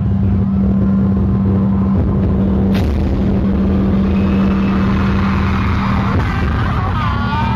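Loud, steady crowd din in a concert arena over a low hum. Near the end, high-pitched screaming and cheering from fans rises.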